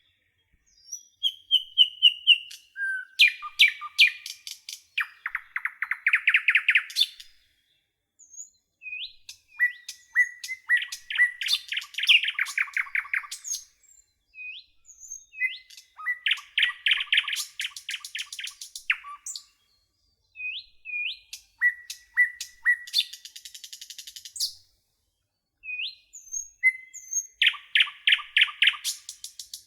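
A songbird singing close by: loud phrases of quick repeated notes and trills, each lasting a few seconds, with short pauses between them.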